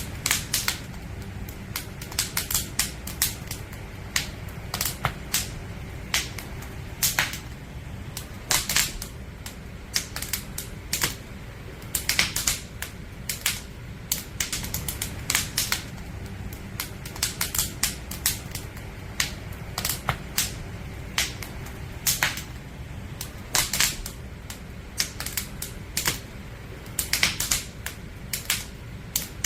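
Firewood crackling as it burns: irregular sharp pops and snaps, often several in quick clusters, over a steady low background of the fire.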